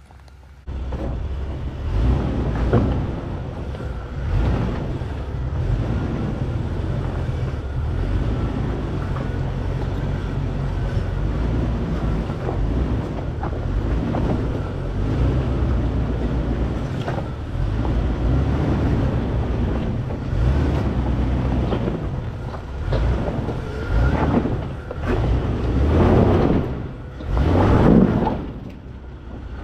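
Jeep engine running at low speed as it crawls over rocks, a steady low rumble with the revs swelling several times near the end.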